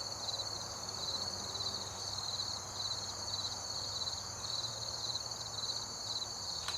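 Crickets chirring in a steady, pulsing high-pitched chorus, with one faint click near the end.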